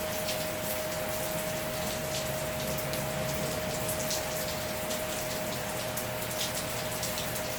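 Heavy rain pattering steadily, with a dense crackle of drops, over a steady unbroken tone.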